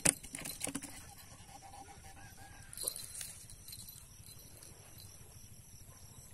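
Close handling noises: a cluster of sharp clicks and knocks in the first second and another knock about three seconds in, over a steady chorus of insects.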